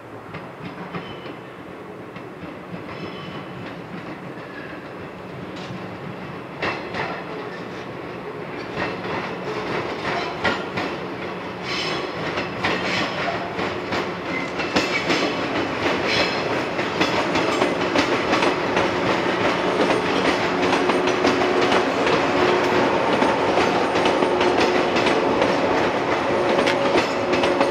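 Yellow JR West electric multiple-unit train (Okayama depot set B17) approaching and running past, growing steadily louder, its wheels clicking and clattering over rail joints and points. A steady hum runs under the clatter in the second half.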